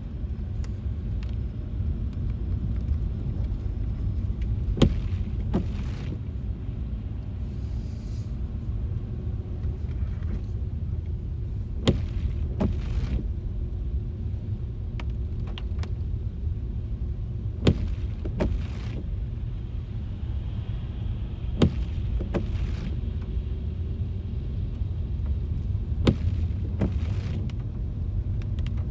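Steady low rumble of a car driving on wet streets, heard from inside the cabin. Over it, sharp knocks come in pairs about a second apart, repeating every four to seven seconds, typical of windshield wipers on an intermittent setting.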